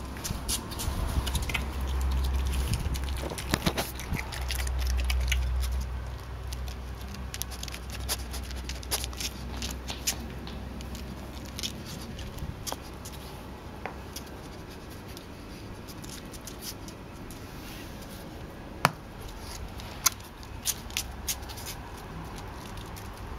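A European badger moving about and feeding on paving slabs: scattered small clicks and taps from its claws and mouth, with a low rumble in the first few seconds and two sharper clicks about a second apart later on.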